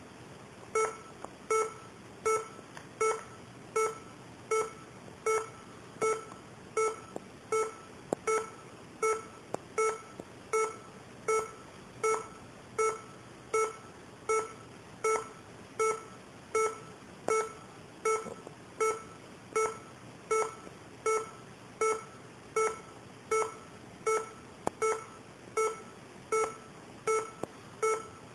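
Laptop alert tone beeping over and over, about once every three-quarters of a second, each beep short with a brief fade: the laptop's error sound set off by a cat sitting on it.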